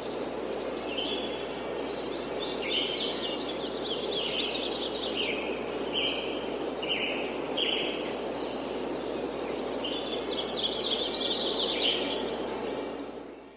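Several small birds chirping and trilling in quick overlapping phrases over a steady background hiss of light outdoor wind. The whole ambience fades out near the end.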